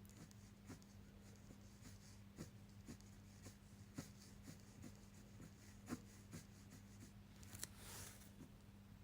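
Faint scratching and ticking of a 0.4 mm fineliner pen nib drawing short strokes on paper, with one longer stroke near the end. A low steady hum runs underneath.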